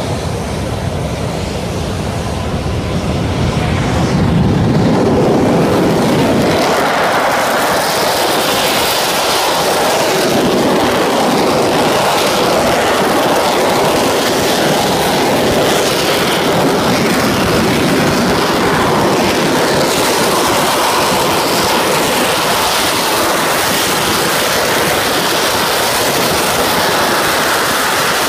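Mirage-type delta-wing fighter's jet engine running as the aircraft taxis. The noise grows louder over the first six seconds, then holds steady as a loud hissing jet roar.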